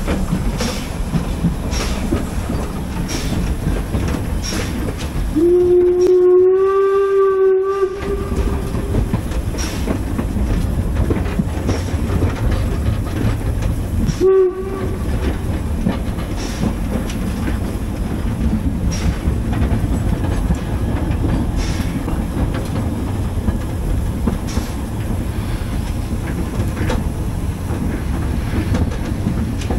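Narrow-gauge steam locomotive running, heard from close behind the engine: steady running noise with a regular click about once a second. A whistle blows one steady blast of about two and a half seconds around five seconds in, then a short toot around fourteen seconds in.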